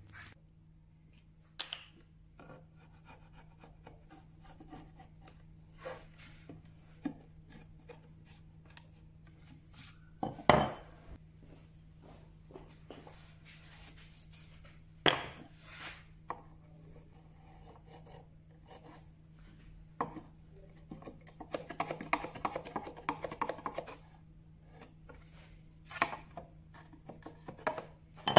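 A wide wood chisel paring a small strip of wood to round it over, heard as scattered knocks and taps of the tool on wood and the bench, with a run of quick scraping strokes about three quarters of the way through.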